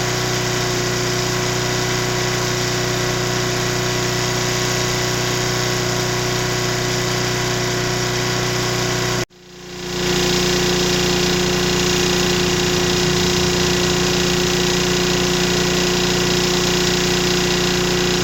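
Mid-1980s Nissan GX1000 portable generator's engine running steadily, in two takes joined by a sudden cut about nine seconds in. The second take has a stronger, slightly uneven tone. Under a 500-watt load it makes metallic knocking noises, which the owner can't place as rod knock or as something loose inside the muffler.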